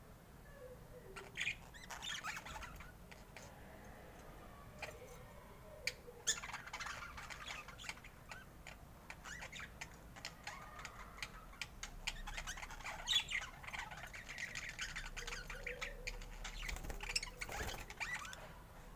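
Budgerigars chattering and squawking in irregular spells, with scattered short clicks among the calls.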